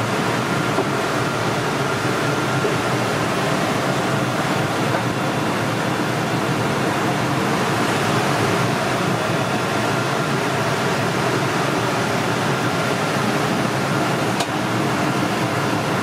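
Steady, even roar of a commercial kitchen's running equipment, such as its exhaust fans, with a faint steady hum in it. One small click about three-quarters of the way in.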